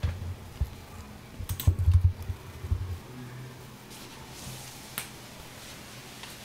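A few faint computer-mouse clicks and soft knocks from handling on the desk, scattered over a low room hum, with one sharper click about five seconds in.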